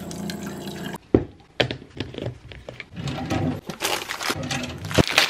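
Water running from a water dispenser's tap into a plastic sippy cup for about a second, then stopping abruptly. Handling sounds follow: sharp clicks and knocks and the rustle of plastic-wrapped packets in a kitchen drawer, with a sharp knock near the end.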